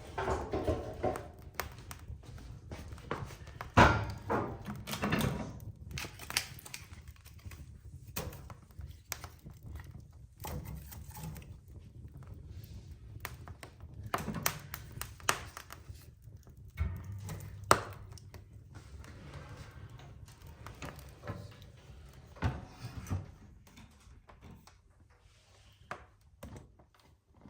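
Irregular knocks, clatters and thunks of objects being handled, the loudest about four seconds in and about eighteen seconds in.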